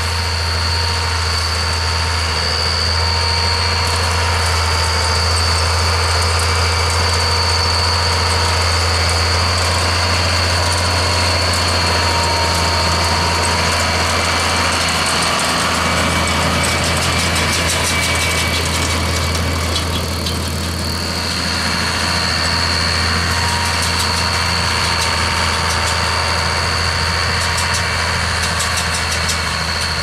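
Case IH 956XL tractor's six-cylinder diesel running steadily under load while driving a round baler-wrapper picking up hay, with a steady high-pitched whine from the machinery that fades out briefly past the middle.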